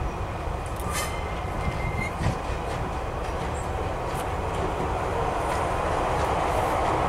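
Diesel locomotive approaching slowly with its coaches, its engine running and growing steadily louder as it nears. A brief thin high squeal sounds about a second in.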